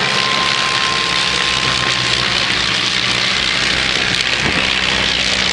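Piston engines of light propeller aircraft flying past overhead, a steady engine sound under a dense hiss.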